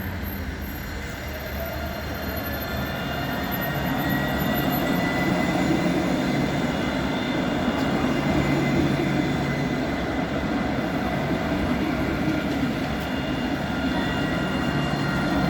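Tram running along its rails, growing louder over the first few seconds and then holding steady, with faint high whining tones above the rumble.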